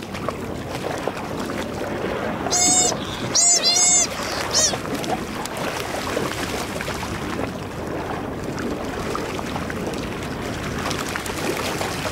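Seabirds squabbling on the water give four short, harsh squawks a few seconds in, over a steady wash of sea and boat noise.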